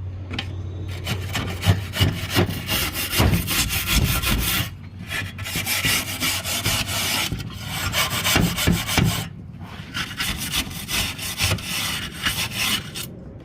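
Wire brush scrubbing over a wood-heater door, a loud, rasping scrape in four spells with short pauses between them.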